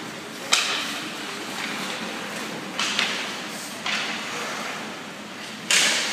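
Ice hockey play in a rink: four sharp knocks and scrapes from puck, sticks and skates hitting the boards and ice, each dying away quickly, over steady rink background noise.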